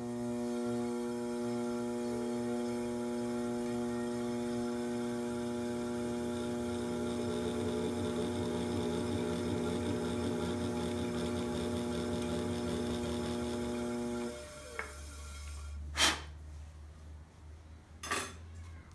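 Electric pottery wheel motor humming steadily as it spins, with the light rattle of a flexible chattering tool scraping texture into the leather-hard clay. The hum stops about fourteen seconds in, followed by a few sharp knocks.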